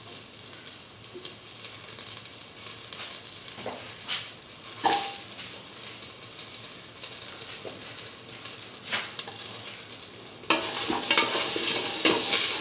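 Beetroot pieces, sliced onion and whole spices frying in oil in a steel pan: a steady sizzle with a few light clicks. About ten seconds in it turns suddenly louder as the mixture is stirred in the pan.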